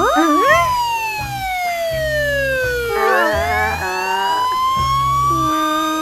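A cartoon siren sound effect wailing slowly, its pitch falling for about three seconds and then rising again, over background music with a steady beat. Short quick whistle-like pitch glides come near the start and again about halfway.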